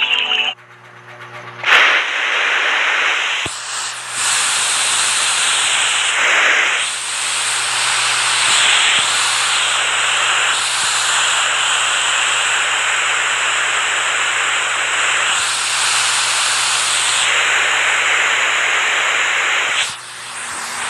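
Rushing water: a loud, steady hiss that cuts in abruptly about two seconds in, swelling and easing a little, and falls away shortly before the end.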